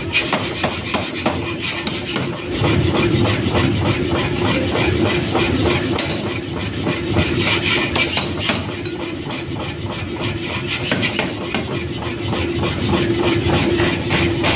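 Mechanical power hammer pounding an axe blank in quick repeated blows, several a second, metal striking metal over a steady machine hum.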